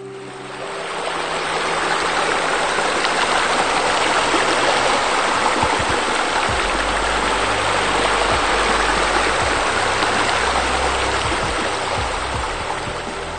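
Rushing, churning water, like spa jets, swelling in over the first two seconds and easing off a little near the end.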